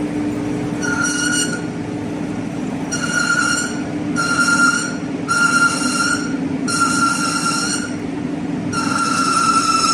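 Metal lathe running with a steady hum while its cutting tool faces a flange, the tool squealing in about six high, ringing bursts roughly a second apart.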